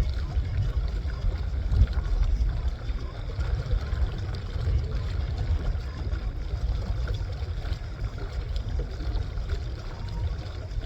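Wind buffeting the microphone in a steady, gusty low rumble while a small sailboat moves under sail, with a faint wash of water along the hull.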